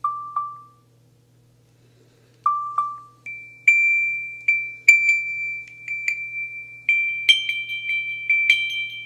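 Soundscape app's audio beacon playing from an iPhone: two pairs of short chime-like pings at one pitch, then from about three seconds in a higher ping that repeats more often and grows brighter toward the end. The change to the higher, quicker ping is the beacon's sign that the phone is now turned to face the marker.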